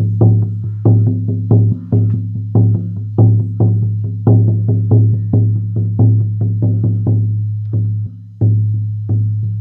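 Horse skin shamanic frame drum on a 14-inch oval willow frame, struck with a soft beater in a steady rhythm. Each stroke rings into a deep boom. There is a short break about eight seconds in, then the beating resumes.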